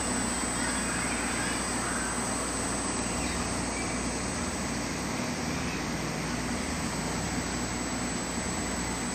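LEGO Technic electric motor driving a worm gear and a train of 40-tooth and crown gears that flap a model's wings, running with a steady whir and gear noise.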